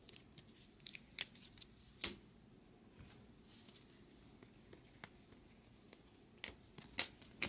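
Bowman Chrome trading cards being handled and flipped through by hand: a scattering of light, sharp clicks of card edges at irregular intervals.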